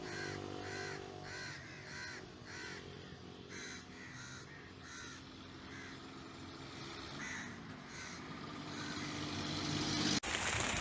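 A bird calling over and over in short harsh calls, about one every two-thirds of a second, thinning out after about halfway, over a low steady hum.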